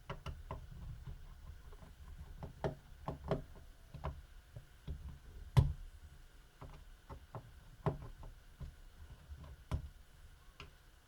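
Small screwdriver backing out the bottom-case screws of a Sony VAIO VPCS13Z9R laptop: irregular light clicks and taps of metal on screws and plastic case, the sharpest about halfway through.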